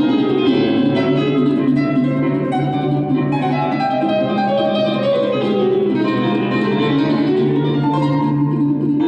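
Live jazz duet of a ten-string bandolim (Brazilian mandolin) and a grand piano. A quick line of plucked notes runs over held low piano notes.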